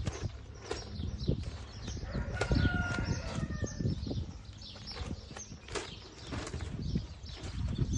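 A bird gives a short call about two and a half seconds in, among frequent soft clicks and rustles.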